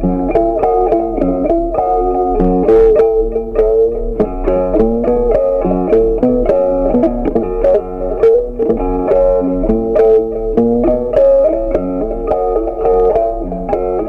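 Background music: a plucked guitar playing a quick, steady run of picked notes.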